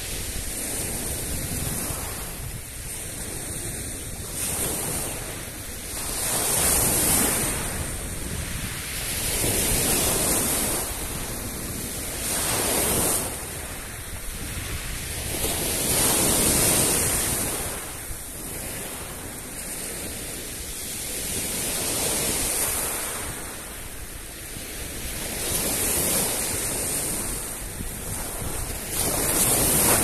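Sea surf: small waves breaking and washing onto the shore, the rush of water swelling and easing every few seconds.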